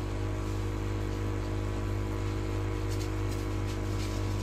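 A steady electrical hum with a row of even overtones and a faint hiss, unchanging throughout.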